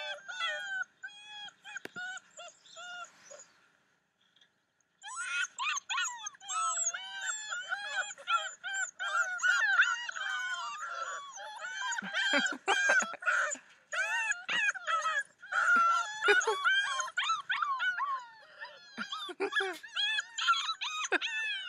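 Several malamute puppies howling and whimpering together, high wavering cries that overlap, played back from a video through a speaker. There is a short lull a few seconds in, then the howling picks up again and keeps going densely.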